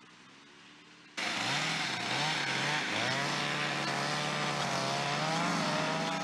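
Petrol chainsaw cutting into river ice, starting abruptly about a second in. Its engine pitch dips and recovers several times as the bar bites into the ice, then runs steady at high revs.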